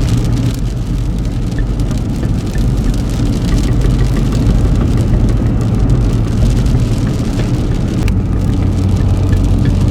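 Cabin noise of a car driving on a snowy mountain road: a steady low hum of engine and tyres, with scattered light ticks like snow or sleet hitting the car.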